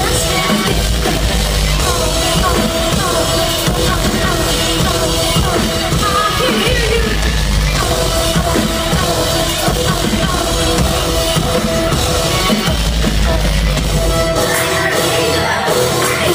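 Band playing loud live rock with a pounding drum kit. Heavy low bass notes come in and out in long blocks and drop out about fourteen seconds in.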